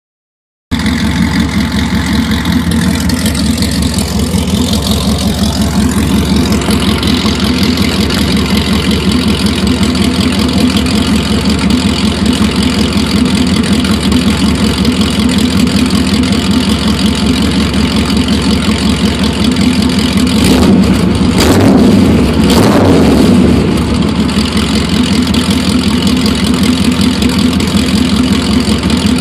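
383 stroker V8 idling through a 3-inch headers-back exhaust with Dynomax Ultra Flo stainless steel mufflers and dual tips, a steady pulsing idle. Two short revs come close together about two-thirds of the way through, then it settles back to idle.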